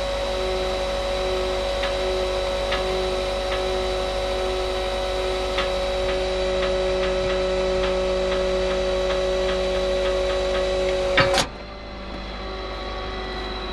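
Truck's hydraulic tilt-bed system running with a steady whining hum and faint ticks as the bed pulls the platform back on. It cuts off suddenly with a click about eleven seconds in, leaving a quieter steady hum.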